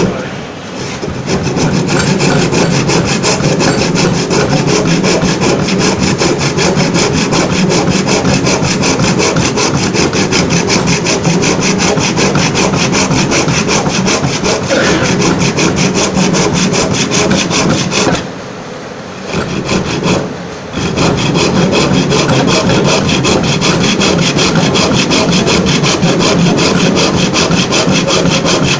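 Hand saw cutting through wood in fast, steady back-and-forth rasping strokes, pausing for about two seconds past the middle, while a tenon is cut.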